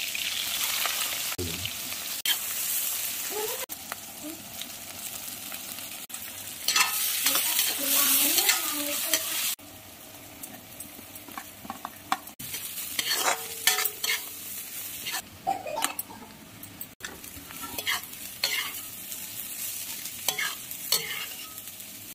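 Food sizzling as it fries in a pan while a spoon or spatula stirs it, scraping against the pan with frequent short scrapes and clinks. The sizzle is loudest in the first half and drops sharply about nine and a half seconds in.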